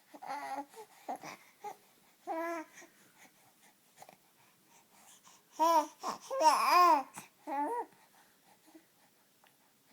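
A dog making short whining, yodel-like vocal calls in bursts, each rising and falling in pitch, with the loudest run of calls a little past the middle.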